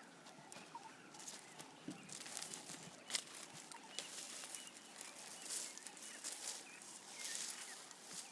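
A giraffe browsing: leaves and twigs rustling and crunching in short bursts, with birds giving small chirps. A single sharp snap comes about three seconds in.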